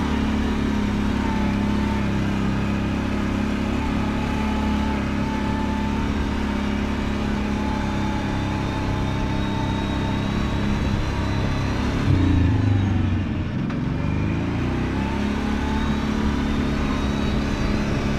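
Kawasaki Brute Force 750 ATV's V-twin engine running steadily under way. About twelve seconds in it swells louder, drops off briefly, then climbs in pitch again.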